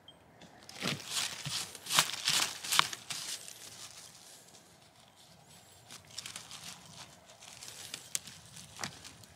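Rustling and crackling of forest-floor litter (dry leaves, twigs, moss) disturbed close to the microphone as a hand works in around a mushroom. The rustling is loudest in the first three seconds, with a few sharp cracks, then turns to lighter scattered rustling, with one more sharp crack near the end.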